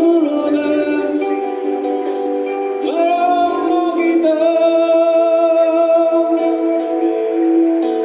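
Street music: long held melodic notes with singing, sliding up into a new note about three seconds in.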